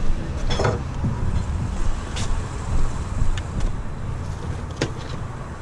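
Steady low mechanical rumble. Over it, a rattling scrape about half a second in and a few sharp clicks and knocks after it, as a long grabber stick is pulled from a pickup bed and poked into trash in a metal dumpster.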